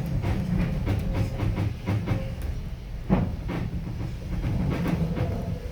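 Passenger train coach rolling along the rails: a steady low rumble with irregular clacks and knocks, the sharpest about three seconds in.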